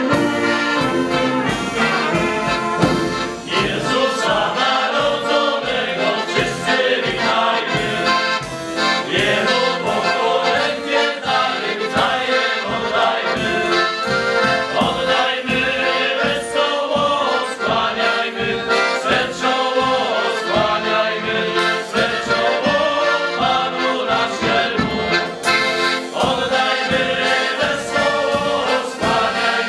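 A group of men singing a Polish Christmas carol (kolęda) together to piano-accordion accompaniment, with a steady bass-drum beat; the brass and reeds are silent.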